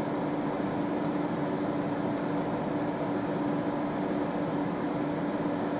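Steady mechanical background hum with one held tone, like a fan or air conditioner running, unchanging throughout.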